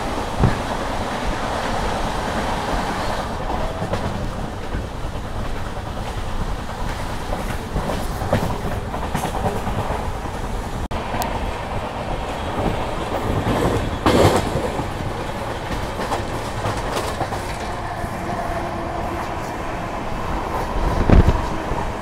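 Wheels of an Indian Railways sleeper-class coach rolling over the track, heard from the coach side. The running noise is steady and clickety-clack, with a few sharp louder knocks, one about fourteen seconds in and another near the end.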